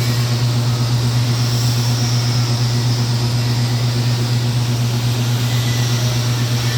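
AC TIG welding arc on aluminum: a steady, loud electrical buzz with a low hum and a hiss above it, holding even without breaks.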